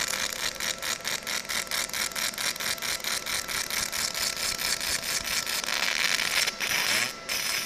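50W fiber laser beam cutting a name out of a metal sheet: a crackling hiss that pulses about five times a second as the beam retraces the lettering pass after pass, cutting out briefly about seven seconds in.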